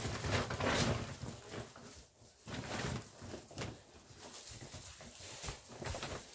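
Straw bedding and a paper sack rustling and crackling in irregular short bursts as a puppy noses at the sack and shifts about on the straw.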